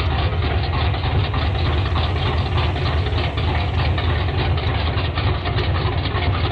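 347 cubic-inch stroker V8 idling just after starting, a steady, heavy running note with a rapid, even ticking over it.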